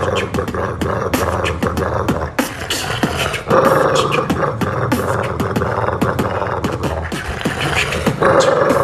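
Human beatboxing: a fast, rhythmic run of mouth-made kick and snare clicks, with longer held sounds about three and a half seconds in and again near the end.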